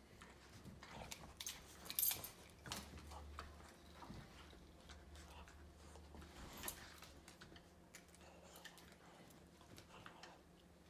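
Faint scattered clicks and scuffles of an adult Boston Terrier and a puppy tugging a rubber ring toy between their teeth, with the sharpest click about two seconds in.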